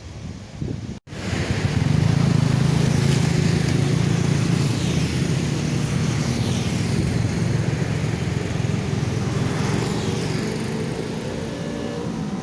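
Road traffic at a level crossing: motorcycles and cars passing with engines running, a steady low engine hum under the noise of passing vehicles. It starts abruptly after a brief dropout about a second in.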